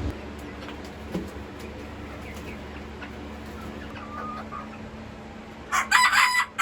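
Chickens clucking faintly, then a rooster crows loudly near the end.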